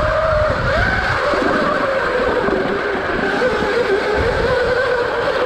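Electric dirt bike's motor whining while riding, its pitch wavering with speed, dipping in the middle and rising again near the end, over an irregular low rumble.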